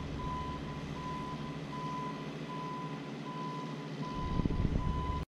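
Warning alarm of a JLG 150HAX boom lift beeping at a steady pace, about one beep a second, over the low hum of the machine's engine. The low rumble grows louder near the end.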